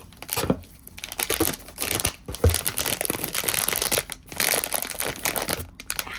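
Packaging bag crinkling and rustling in a dense run of crackles with short pauses, as an item is worked out of it by hand.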